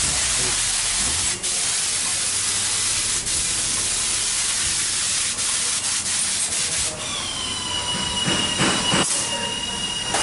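Steady hiss of a pneumatic spray gun spraying contact adhesive for the thermal lining. About seven seconds in, a steady high whistle joins the hiss.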